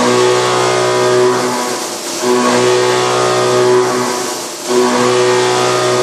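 Haas VF-1 CNC vertical mill with a DHF endmill cutting 1.0503 (C45) steel under flood coolant: a steady pitched cutting tone over a spray hiss. The sound dips briefly about every two and a half seconds, twice here, and then picks back up.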